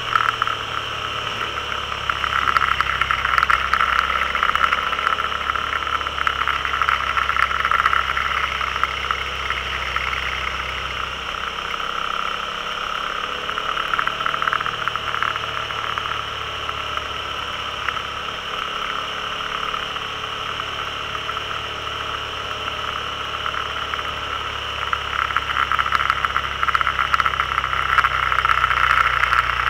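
A motor vehicle's engine running steadily under way, with wind and road noise on an onboard camera. The low engine note shifts a few times with changes in speed.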